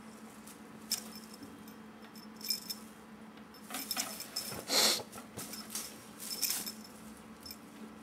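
Small bell jingling on a cat wand toy as a kitten bats and grabs at it, in short irregular bursts, the loudest about halfway through.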